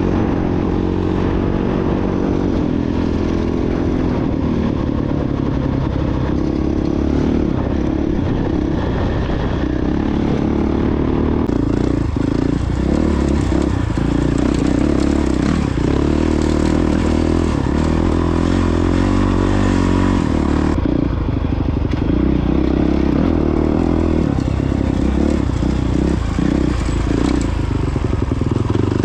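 Honda CRF450X dirt bike's single-cylinder four-stroke engine running on the move, the throttle opening and closing so the engine note wavers and dips several times.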